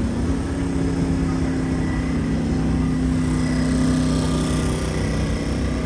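A vehicle engine running steadily with a low, even hum, over city street noise.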